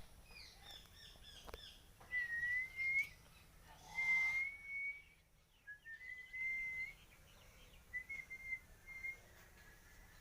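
Clear whistled notes, four short phrases each about a second long, held steady or gliding slightly upward, with faint chirps before them and a brief rustle in the middle.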